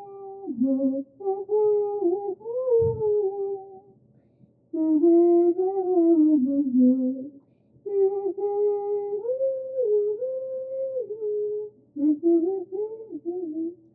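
A woman's voice humming a slow wordless melody in held notes, in phrases with short pauses between them.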